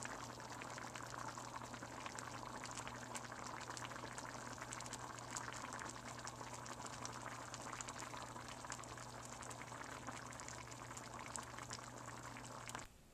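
Lentil stew simmering in a pot: a steady bubbling with many small irregular pops, over a low steady hum. The sound cuts off suddenly just before the end.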